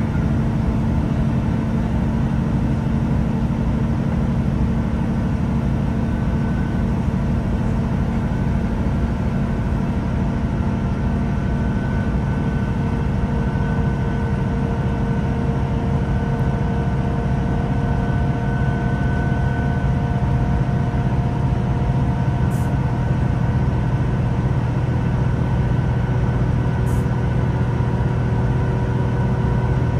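A Class 166 Turbo diesel multiple unit heard from inside the carriage, its underfloor Perkins diesel engine running steadily as the train travels. It is a continuous droning hum over a low rumble, with the low hum growing a little stronger about two-thirds of the way through.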